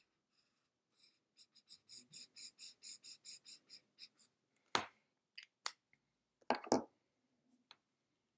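Highlighter scribbled back and forth on paper, an even scratching of about four strokes a second that stops after about three seconds. Then a few sharp clicks and knocks as the highlighter is put away and a pen is picked up.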